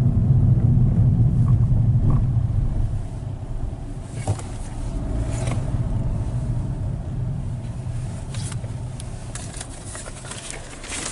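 Car driving, heard from inside the cabin: a steady low engine and road rumble that fades after about three seconds, with a few short clicks later.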